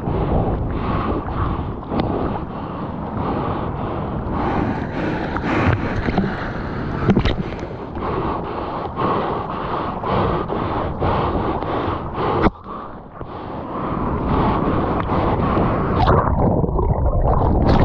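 Water splashing and wind rushing over a board-mounted action camera as a surfer paddles a surfboard out through the surf, with splashy strokes about twice a second. Near the end the sound turns dull and muffled as the camera goes under the water in a duck dive.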